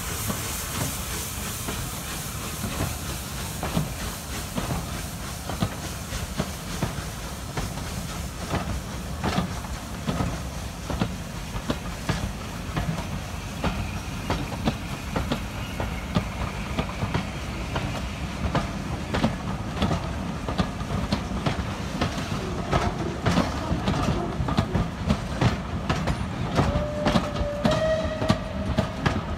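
Passenger coaches of a departing steam train rolling past at low speed. Their wheels click over the rail joints in a clickety-clack over a steady rumble, the clicks coming more often toward the end as the train gathers speed.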